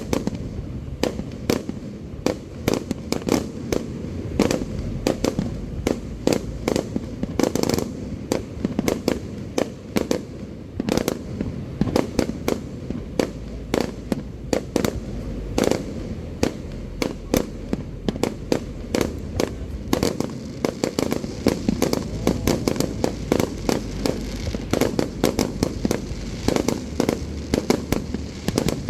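Aerial fireworks going off in a dense, continuous barrage of bangs and crackling bursts.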